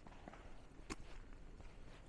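Footsteps of someone walking on snowy ground: a few separate steps, the sharpest about a second in, over a faint low background hum.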